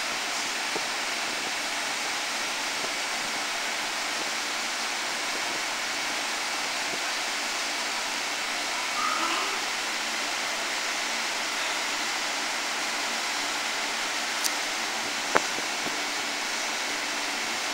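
Steady hiss of a standing 205 series electric train waiting at the platform with its doors open, its blowers and auxiliary equipment running. Two short clicks come near the end.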